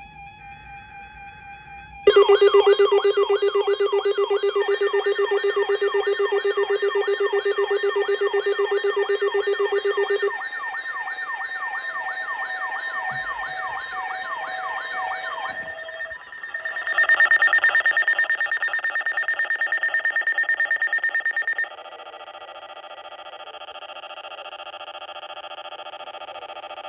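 Electronic emergency alert tones in sequence: a short beeping tone, then about two seconds in a loud warbling tone over a steady low tone. Later the warble gives way to a steady high tone with rapid pulsing, and then to a quieter steady chord of tones.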